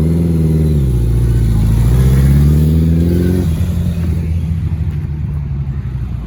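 Motorcycle engine revving: its pitch dips about a second in, climbs again, then drops back to a steady idle about three and a half seconds in.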